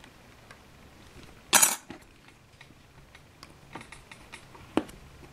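Craft knife cutting a small laser-cut model door along a steel ruler on a cutting mat: one loud, short scrape about one and a half seconds in, then light clicks and taps of the blade and ruler, with a sharper tick near the end.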